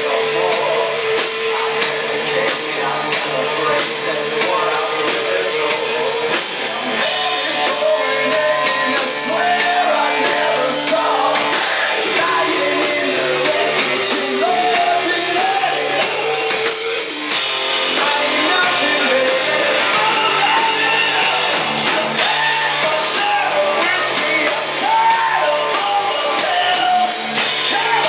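Live rock band playing loud: a singer shouting and singing over electric guitar and drums. A long held note carries the first few seconds before the voice moves up and down over the band.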